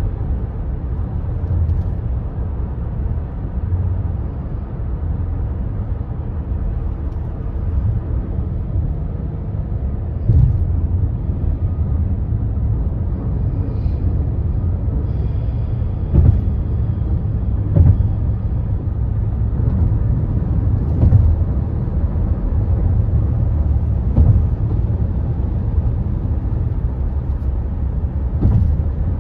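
Tyre and road noise heard inside a car cabin driving over a highway bridge: a steady low rumble, broken about six times in the latter two-thirds by sharp thumps as the wheels cross the bridge deck.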